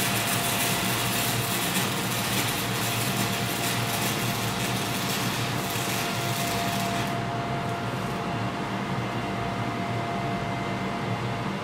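Stick-welding arc from a 6011 rod crackling and hissing steadily, stopping about seven seconds in. Under it, and on after it, the steady hum of a garage exhaust fan driven by an old furnace blower motor.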